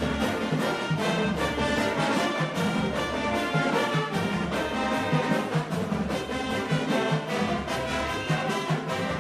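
College marching band playing: brass section over regular drum beats.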